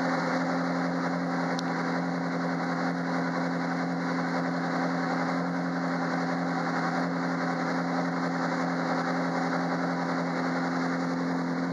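Ferrari 458 Challenge's 4.5-litre V8 idling steadily through its racing exhaust, the pitch holding level with no revs.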